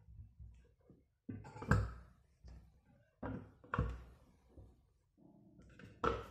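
Whole potatoes dropped into the clear plastic bowl of a manual pull-rope chopper, knocking against the plastic and each other: several irregularly spaced knocks, the loudest near the end.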